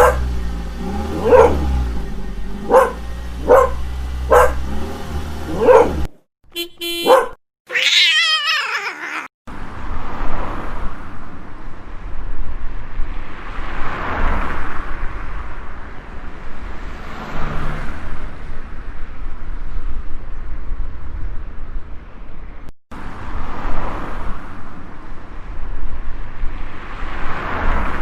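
A dog barks about every one and a half seconds, then a cat gives a short wavering yowl. After that, cars pass one after another, each one a rising and fading swish every few seconds.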